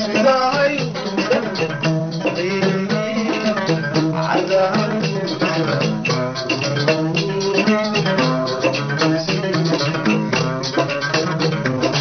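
Somali qaraam song: a man sings over plucked-string accompaniment with a bass line and a busy rattling percussion rhythm.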